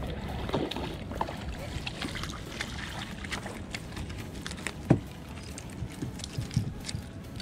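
A spinning reel being cranked as a sheepshead is reeled in and landed on a shell beach, under a steady hiss of wind and water, with scattered handling clicks and one sharp knock about five seconds in.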